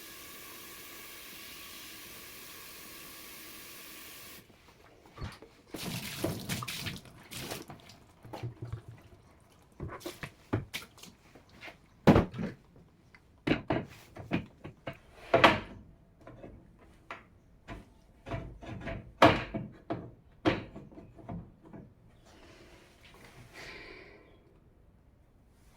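Water running from a tap in a steady hiss that cuts off suddenly about four seconds in. It is followed by a long string of irregular knocks and clatters, some sharp and loud, as hard objects are handled.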